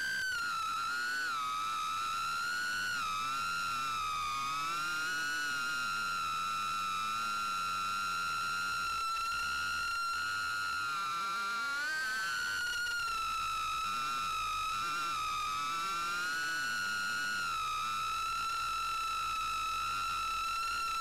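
Mobula6 tiny whoop's brushless motors and propellers whining in flight: a steady high pitch that wavers up and down with the throttle.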